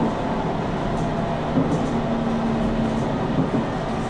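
Diesel limited express train running along the track, heard from inside the cab: a steady rumble of engine and wheels on rail. A faint steady hum comes in for about a second and a half in the middle.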